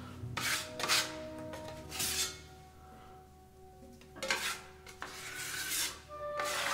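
Irregular rubbing strokes of a tool working decorative paint across a wall surface, about five strokes with a quieter pause near the middle, over faint background music.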